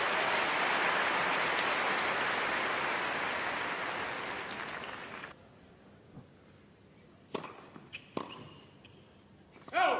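Stadium crowd applauding a point, fading and then cut off about five seconds in. Then near quiet, broken by a few sharp cracks of tennis balls struck by rackets and bouncing, about seven to eight seconds in.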